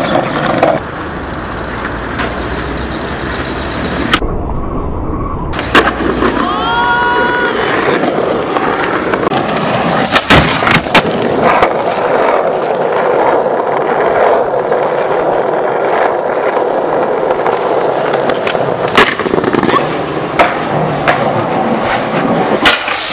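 Skateboard wheels rolling over asphalt in a steady rumble, broken several times by sharp clacks of the board's tail popping and the board landing.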